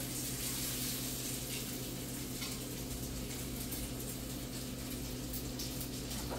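Bacon sizzling in a frying pan, a steady hiss with faint crackle, over a low steady hum.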